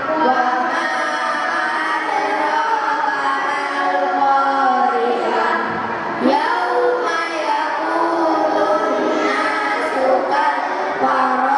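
A group of young students singing together in unison.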